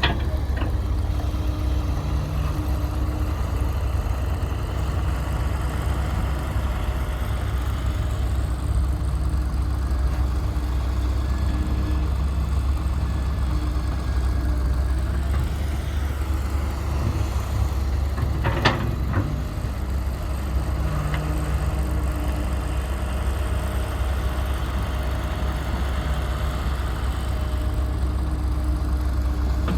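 Heavy diesel engine of earthmoving machinery running steadily, with one sharp knock about two-thirds of the way through.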